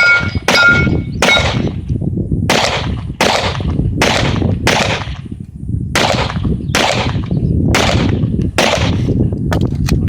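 A string of about eleven handgun shots fired at a steady pace, a little under a second apart. The first three are each followed by a brief metallic ring.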